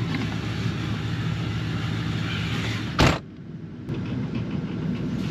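Ford Super Duty's 6.0 Power Stroke V8 turbodiesel idling steadily, with one loud sharp thump about three seconds in, after which the engine sounds duller for a moment.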